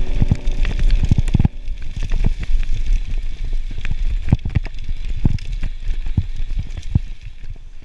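Mountain bike ridden fast over a rough, leaf-covered dirt trail: tyres on the ground with a low rumble, and the bike rattling with many irregular sharp knocks over bumps.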